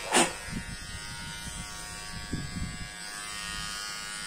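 Enchen Hummingbird cordless hair clipper running with a steady buzz. Right at the start a short, loud puff of air is blown across the clipper blade.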